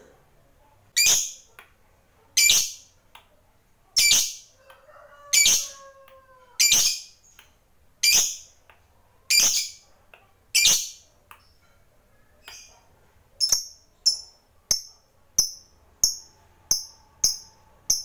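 Lovebird giving a series of sharp, shrill calls, about one every second and a half; from about two-thirds of the way in they turn shorter and quicker, about three every two seconds.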